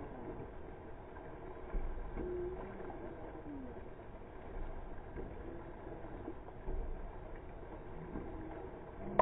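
Dragon boat under way with the crew paddling: a steady wash of water against the hull and paddles, with low thumps every couple of seconds and a few faint short pitched calls.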